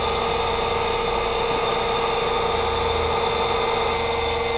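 TruTech TT8500 CNC centerless profile grinder running with its wheel spindle and variable-speed regulating roller turning: a steady machine hum with one strong, steady tone.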